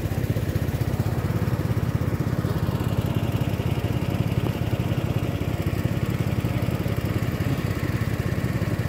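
A small engine running steadily at a fast, even beat.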